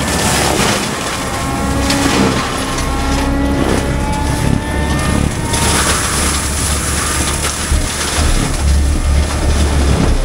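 Heavy diesel machinery running steadily, with a deep low rumble under a broad mechanical noise.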